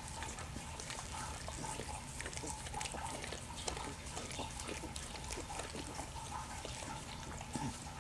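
Pit bull mother licking and nuzzling her newborn puppy: irregular wet smacking and clicking, with some snuffling.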